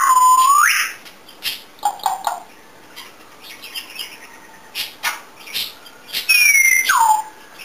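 African grey parrot whistling. A loud whistle dips and rises at the start, another loud whistle falls in pitch near the end, and short clicks and chirps come in between.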